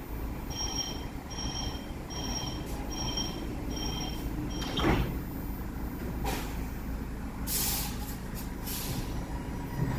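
Commuter train door warning beeping, about seven short beeps, ending in a knock as the sliding doors shut about five seconds in. Several bursts of air hiss from the train's pneumatics follow.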